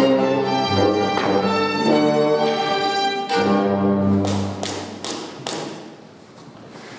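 Orchestral string music playing, fading out about four to five seconds in, while four or five sharp knocks sound in quick succession.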